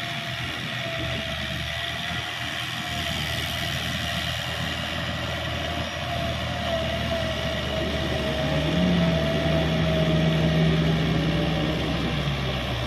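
Kubota L5018 tractor's diesel engine running as it pulls a rotary cultivator through a rice field, with a steady whine over the engine note. It grows louder about two-thirds of the way in as the tractor comes closer.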